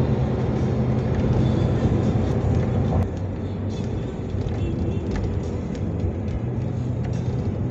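A car driving at highway speed, heard from inside the cabin: a steady drone of engine and tyre noise. It drops in level about three seconds in.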